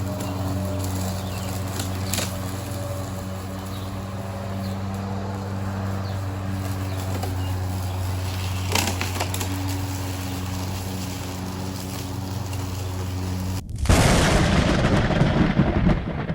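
Greenworks Pro 80 V battery-powered lawn mower running with a steady hum. About fourteen seconds in, the hum cuts off abruptly and a louder, rough noise takes over, fading out near the end.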